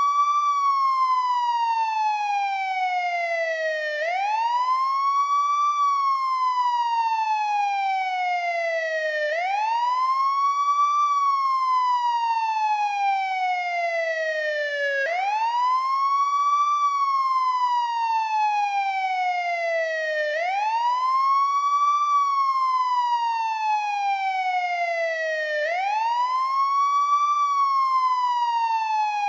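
Old-model NYPD police car siren on its wail tone: the pitch climbs quickly, then falls slowly, in a cycle that repeats about every five seconds.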